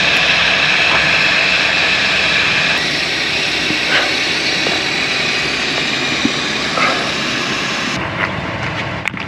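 Steady rushing engine noise from the stuck 4WD, running while the vehicle is lifted off the ground. It drops noticeably about eight seconds in.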